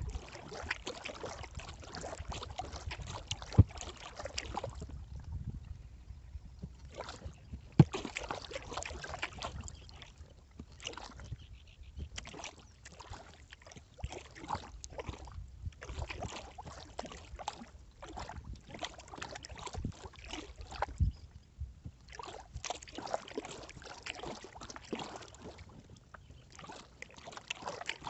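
Kayak paddle strokes in calm lake water: the blades dipping, splashing and dripping in an uneven rhythm, with brief pauses between runs of strokes. A few sharp knocks stand out, the loudest two in the first third.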